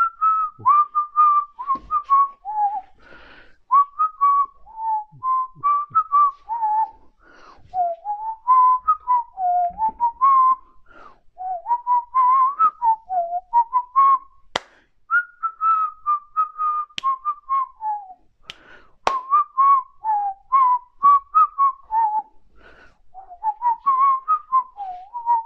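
A man whistling a tune in short notes that wander up and down in pitch, with a few sharp clicks along the way.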